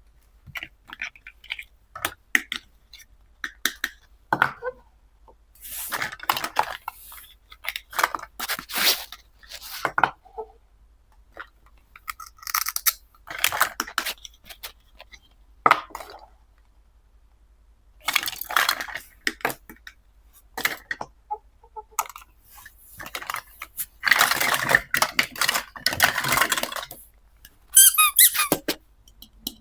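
Plastic toy kitchen pieces being handled: irregular clicks and taps with bursts of squeaky plastic rubbing and scraping, separated by short pauses.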